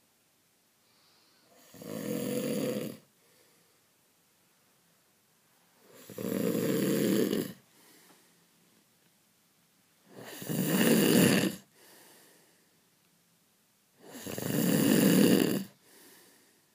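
A person snoring loudly in a slow, regular rhythm. There are four heavy snores about four seconds apart, each lasting about a second and a half and followed by a faint, short breath out.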